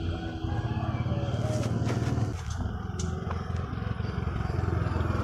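Small motorcycle engine running as a motorbike comes up the road, its sound getting louder about half a second in.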